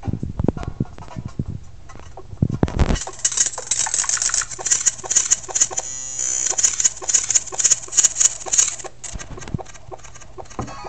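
Audio samples played back from Max5 patches and manipulated live with an Akai LPD8 pad controller: pads switch the samples on and off while the knobs move through the waveform, changing pitch and speed. Low thuds give way about three seconds in to a dense, bright noisy texture over a steady low hum, which breaks up again about nine seconds in.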